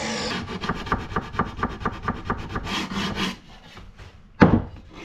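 A sanding block rubbed by hand along the edge of a wooden cabinet door frame in quick back-and-forth strokes, several a second, easing the edge. About four and a half seconds in comes a single sharp knock of wood on wood, the loudest sound.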